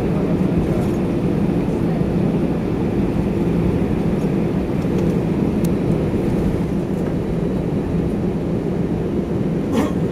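Airbus A320 cabin noise while taxiing: a steady rumble and hum from the engines at low thrust, heard from inside the cabin, with one brief click near the end.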